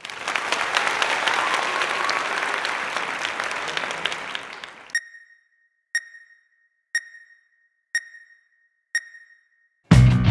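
A dense crackling noise like applause that fades away over the first five seconds, followed by five identical short, high electronic beeps one second apart, like a countdown. Music with a strong bass line starts just before the end.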